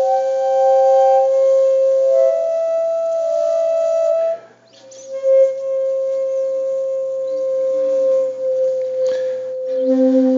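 Slow background music of long, held single notes, with a short break about four and a half seconds in.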